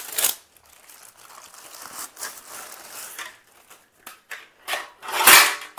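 Packing material rustling and crinkling as a ceiling fan blade is handled and taken out, with a couple of sharp crackles and the loudest crinkle near the end.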